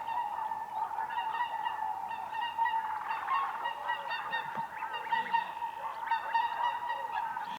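A flock of whooper swans calling: many short honking calls overlapping one another in a continuous chorus.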